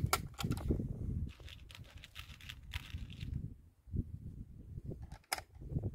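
Handling noise from an air rifle being picked up and readied: rustling of clothing and gloves with a few sharp clicks, the clearest one about five seconds in.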